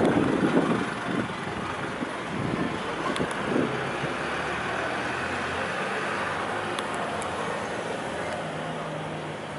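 Wind gusting on the microphone for about the first second, then a steady distant engine rumble and hiss that swells gently in the middle.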